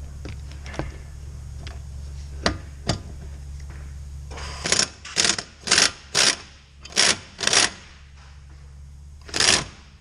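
Ratchet wrench clicking in six quick strokes, then once more near the end, with a few light knocks of the socket going onto the bolt before it: the brake caliper bolts are being worked loose.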